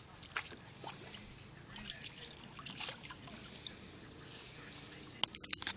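Water splashing and dribbling in a small pool as a dog plays in it, in scattered short splashes, with a quick run of louder splashes about five seconds in.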